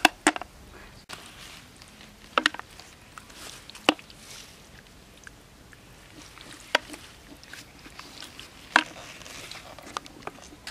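Bare hands digging and squelching in wet mud, giving a handful of sharp wet smacks and clicks, irregularly spaced a second or two apart, as snails are picked out.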